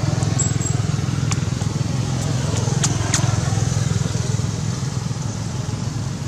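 A low, steady engine drone with a fast pulsing rumble runs throughout. A few sharp clicks come near the middle.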